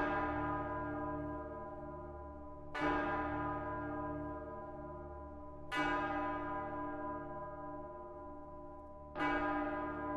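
A deep bell struck four times, about three seconds apart, each stroke ringing out and slowly fading over a low steady drone, as part of a music track.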